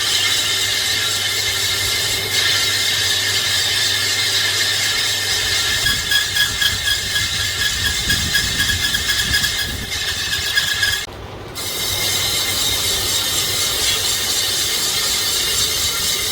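Lathe turning a bike brake drum, the cutting tool squealing steadily against the spinning metal. The squeal drops away briefly about eleven seconds in, then picks up again.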